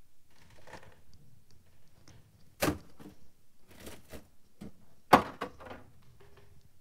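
A few sharp knocks and clatters. One comes about two and a half seconds in and the loudest about five seconds in, with a few smaller ones in between.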